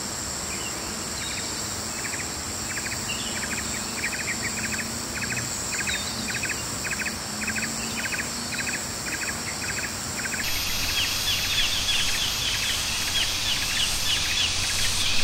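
Morning forest ambience of insects and birds: a steady high insect drone with a short pulsing call repeated about twice a second. About ten seconds in, the sound changes abruptly to rapid bird chirps over a low rumble.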